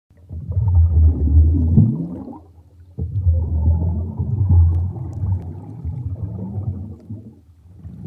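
Underwater sound effect: a low rumbling gurgle with rising bubble sounds. It comes in two swells, the second starting suddenly about three seconds in.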